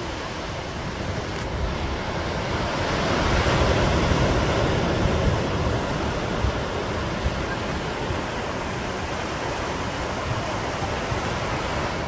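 Ocean surf breaking and washing up a sandy beach, a steady rush that swells louder about three to five seconds in as a wave comes in.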